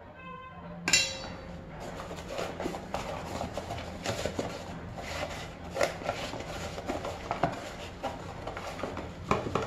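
Oil poured into a plastic food box, a sharp knock about a second in, then a hand rubbing the oil around the inside of the plastic box, with rubbing noise and occasional knocks as the box is handled.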